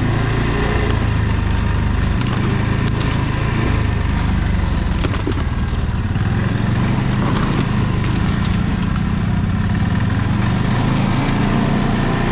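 ATV engine running steadily while riding over rough ground, its pitch shifting a little with the throttle, with a few sharp knocks along the way.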